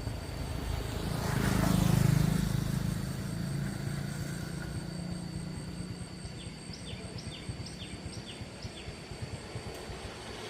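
A motor vehicle's engine, loudest about two seconds in and then fading away.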